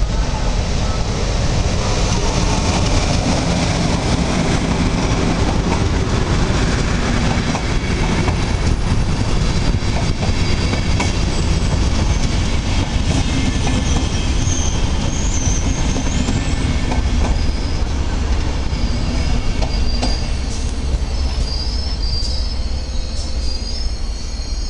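Passenger express hauled by a PKP EP09 electric locomotive rolling past as it runs into a station: a loud steady rumble of coach wheels on the rails with light clicks at the rail joints. From about halfway on, high thin wheel squeals join in as the train slows on arrival.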